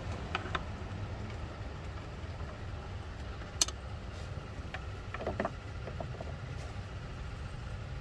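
A GMC Denali's engine idling steadily, with one sharp click about halfway through.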